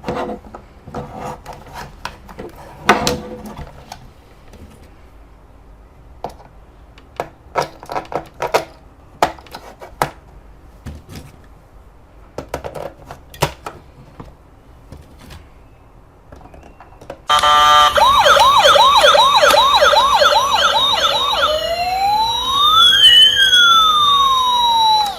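Scattered plastic clicks and handling knocks, then a toy emergency vehicle's electronic siren switches on loudly about 17 seconds in. It starts as a fast yelp repeating a few times a second, changes to a slow rising and falling wail, and cuts off suddenly.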